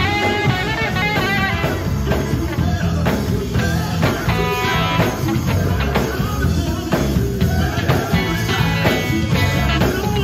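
Live gospel band playing an upbeat song: electric guitar, electric bass and drum kit, with male voices singing into microphones over a PA.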